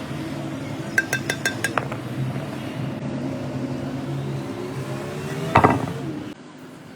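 Metalworking sounds: a run of about five quick, ringing hammer taps on metal, over the steady hum of a running machine whose pitch slowly rises. A single loud metallic clang follows near the end, then the sound drops off abruptly.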